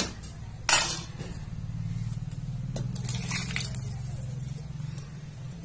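Water being poured into an aluminium pot of rice and spiced masala, a low steady pour, after a single knock of metal about a second in.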